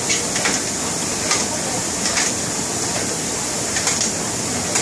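Concept2 rowing machine's air-resistance flywheel whirring steadily as it is rowed hard, with a few short clicks along the way.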